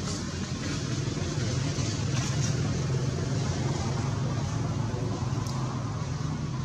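Steady low rumble of a vehicle engine over a broad background noise, swelling slightly a couple of seconds in.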